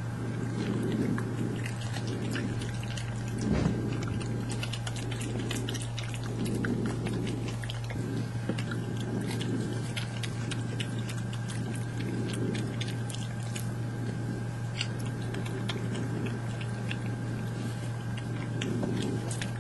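Badgers crunching nuts: a running patter of small sharp cracks and clicks, with soft low swells about once a second and one louder thump about three and a half seconds in, over a steady electrical hum.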